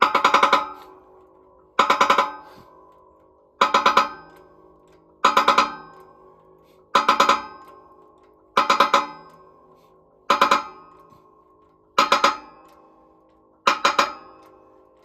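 Rhythmic metallic clanking from a shop press: a quick cluster of clanks about every one and a half to two seconds, each leaving a ringing tone, as a synchronizer blocker and collar are pressed down onto a tractor transmission's top shaft.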